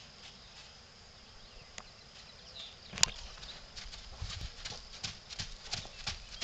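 A young horse's hooves striking a sand arena, becoming a steady trot rhythm of about three beats a second that grows louder from about four seconds in. A single sharp click about three seconds in is the loudest sound.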